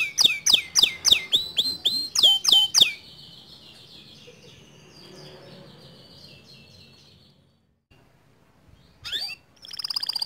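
Male white canary singing: a fast run of loud notes, each falling steeply in pitch, about four a second, then a quieter warbling trill, a brief pause, and a short burst of song near the end.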